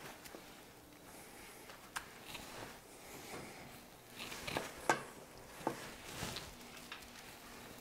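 Fried breaded chicken cutlets being picked off paper towel and laid in a metal roasting pan: faint rustling with several light taps, the sharpest about two seconds in and about five seconds in.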